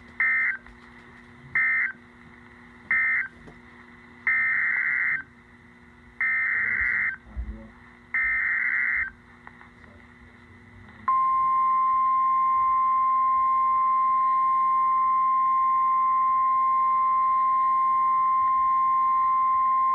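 Weather-radio Emergency Alert System tones. Three short warbling data bursts (the end-of-message code closing one warning) are followed by three longer data bursts (the header for the next severe thunderstorm warning). About eleven seconds in, the steady single-pitch 1050 Hz warning alarm tone starts and holds for about nine seconds.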